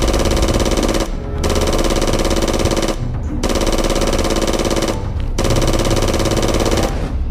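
Electronic toy sniper rifle's firing sound: repeated bursts of rapid machine-gun-like fire over a steady electronic tone, each about a second and a half long with short pauses between, about four times.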